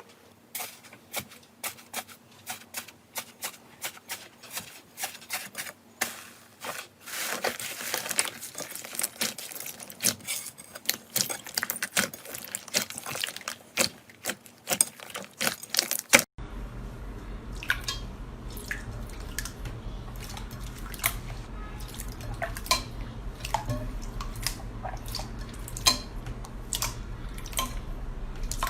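Slime being pressed and squeezed by hand, giving a quick run of small clicks and pops that grows denser toward the middle. About halfway it cuts to another slime clip, with sparser pops over a low steady hum.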